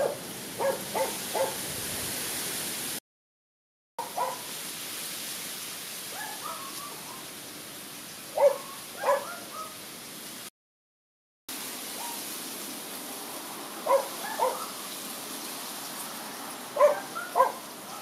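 A bird hooting in short low calls, in groups of two to four repeated every few seconds, over a steady outdoor hiss. The sound cuts out to silence twice for about a second.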